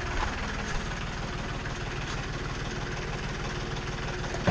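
An engine idling steadily, with a fast, even low pulse and no change in speed.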